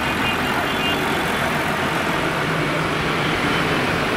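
Tractor engines running steadily as the tractors drive slowly past one after another, first a small vintage tractor and then a large modern one.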